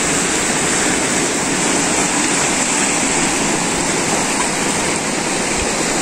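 Ocean surf washing in among shoreline rocks: a steady rush of breaking waves.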